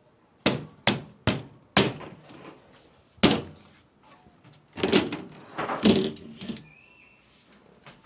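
Sharp knocks on an LG washing machine's metal cabinet and front panel: four in quick succession, a fifth a moment later, then a longer clattering as the front panel is worked loose and taken off.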